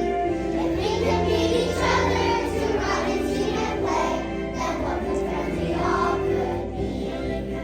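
A choir of young second-grade children singing in unison with instrumental accompaniment.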